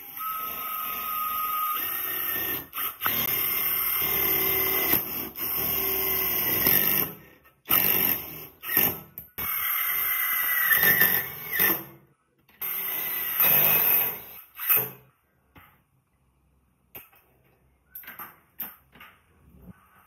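Cordless impact driver hammering as it drives a fitting at the bottom of a steel tank: one long run of about seven seconds, then several shorter bursts. It stops about fifteen seconds in, leaving a few light knocks.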